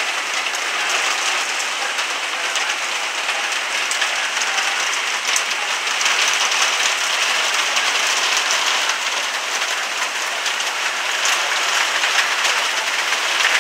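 Steady rain from Hurricane Delta's rain bands falling hard, a dense, even patter of drops with no letup.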